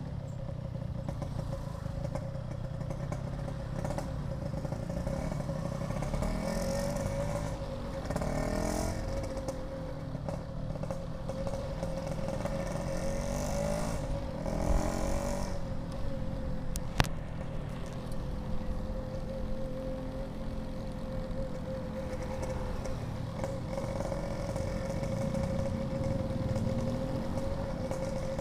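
Yamaha RX-King two-stroke motorcycle engine running with its aftermarket exhaust, revving up and back down twice. A single sharp click sounds a little past the middle.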